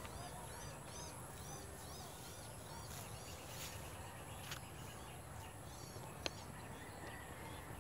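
Faint open-field ambience: a small bird chirping in a quick series of short repeated notes, a couple each second, that fades out about five seconds in, over a steady high insect hum. A few faint clicks.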